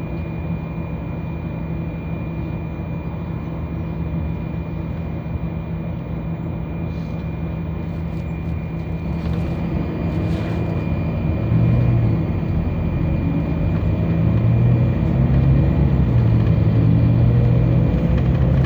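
City bus heard from inside while under way: steady engine and road rumble with a thin, steady high whine, the engine getting louder as the bus pulls away about two thirds of the way through.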